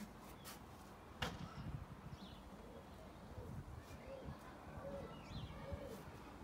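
Pigeons cooing faintly, a run of short low cooing notes in the second half, with a single sharp click a little over a second in.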